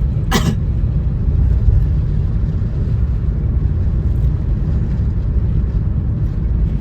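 Car on the move heard from inside the cabin: a steady low rumble of engine and tyres on the road.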